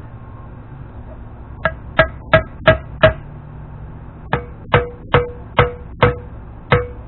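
Hammer blows on a metal seal driver, tapping a new inner wheel-bearing seal into the bore of a Dana 44 front wheel hub. Eleven sharp metallic strikes, each with a short ring, come in two runs of about three a second: five starting about a second and a half in, then six after a brief pause.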